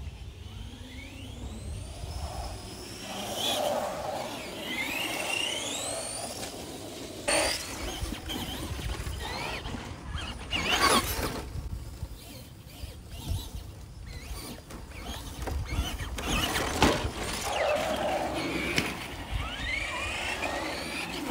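Electric motors of a Traxxas Stampede and an Arrma Senton RC truck whining up in pitch as the trucks accelerate, several times over, with a few sharp knocks in between.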